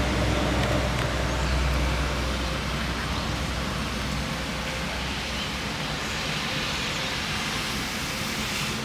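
Steady outdoor background noise with a low rumble, which fades about five and a half seconds in.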